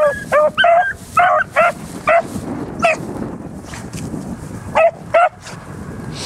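Beagles baying while running a scent trail: a quick string of short, high-pitched barks, a pause, then two more barks about five seconds in.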